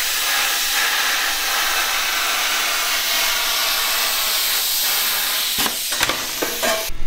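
Hand plasma cutter fitted with fine-cut consumables slicing through sheet metal: a loud, steady hiss of the arc and air jet, which cuts off abruptly near the end.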